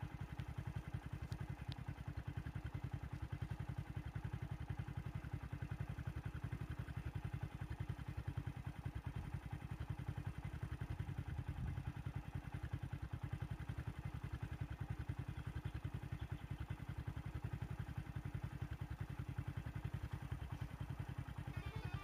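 A vehicle engine idling steadily with an even, rapid chug. Music begins to come in near the end.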